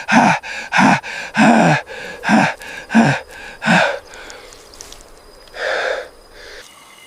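A person gasping for breath in short voiced gasps, each falling in pitch, about one and a half a second, then a single longer breath near the end: someone coming round and struggling for air.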